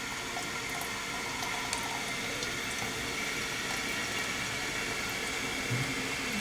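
Toilet cistern refilling after a flush: water running steadily through the fill valve with an even hiss.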